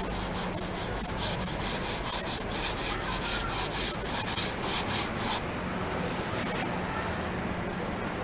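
Plywood panel face being sanded by hand with a small sanding block in quick back-and-forth strokes, about five a second, that stop about five seconds in. A steady low factory hum carries on underneath.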